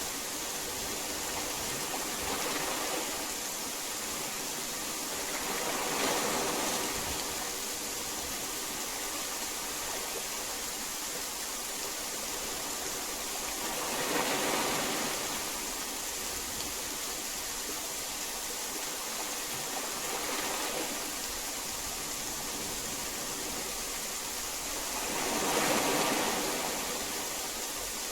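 Steady hiss of heavy rain that swells louder and fades back about five times, every four to eight seconds.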